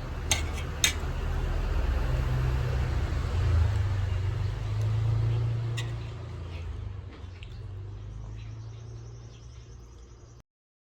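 A motorcycle passing: a low engine rumble that swells over a few seconds and then fades away. Two sharp clicks near the start and another about six seconds in.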